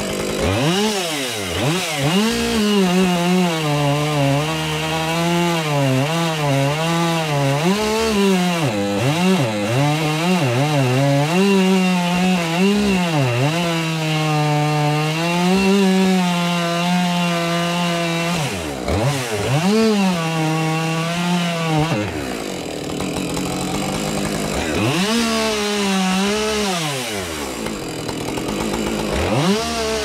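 Two-stroke chainsaw cutting wood at high revs, its engine pitch sagging and recovering as the chain bites. The throttle comes off a few times in the last third, the engine dropping to a low pitch and revving up again.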